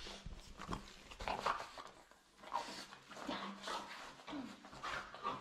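Dog whimpering and whining in short bursts, an excited greeting while being held and hugged.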